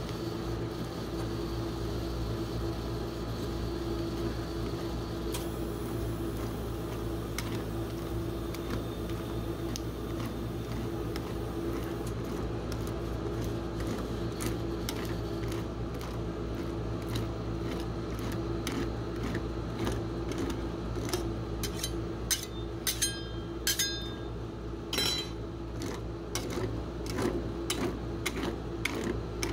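Metal spatulas scraping and spreading ice cream across the frozen steel plate of a rolled-ice-cream machine, over the machine's steady refrigeration hum. From about halfway on, the spatula's edge gives many short taps and scrapes on the plate, a few of them ringing briefly.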